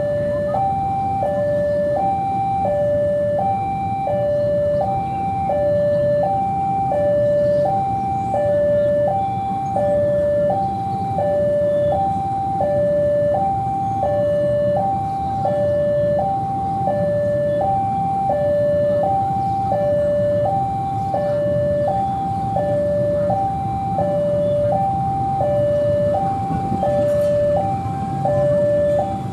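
A two-tone electronic warning signal alternates steadily between a high and a low tone, each held about half a second, over the low, steady running of the departing CC 206 diesel-electric locomotive.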